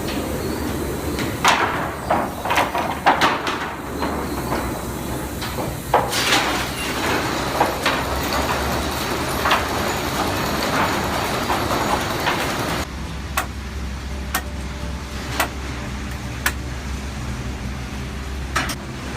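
Sawmill machinery running with a steady low hum and irregular clattering knocks of wood. About two-thirds of the way through the sound changes abruptly to a quieter steady hum with single sharp knocks about once a second.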